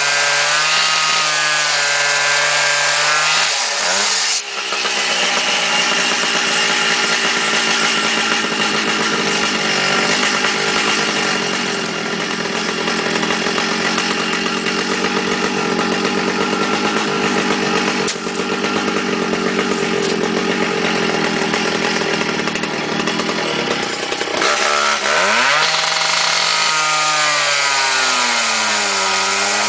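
Two-stroke Makita gas cut-off saw with an abrasive wheel. The engine runs, then revs up about four seconds in, and the wheel grinds steadily through a cast-iron mowing-machine gear housing. About 25 seconds in the grinding stops and the engine revs rise and waver up and down.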